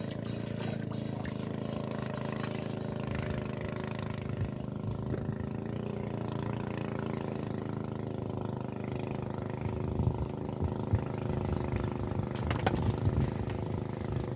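An engine running steadily at an even pitch, with a few light knocks in the last few seconds.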